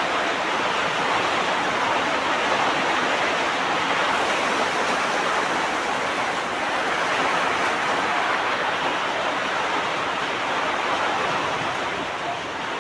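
Heavy rain falling steadily, an even, unbroken hiss of water.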